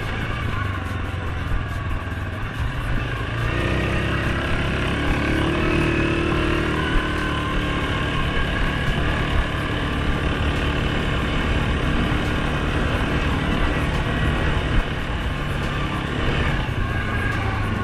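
Suzuki King Quad 750 ATV's single-cylinder engine running under way on the trail. Its note rises about three and a half seconds in, then holds steady.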